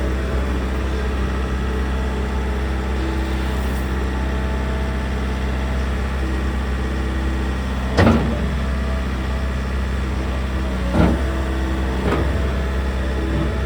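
2021 Bobcat S62 skid steer loader's 68 hp Tier 4 diesel engine running steadily while the machine works, with short tones coming and going over the engine note. Three sharp knocks come about eight, eleven and twelve seconds in, the first the loudest.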